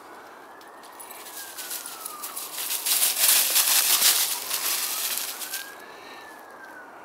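A siren wails, rising and falling slowly twice. In the middle a louder rustling, crunching noise swells up and dies away.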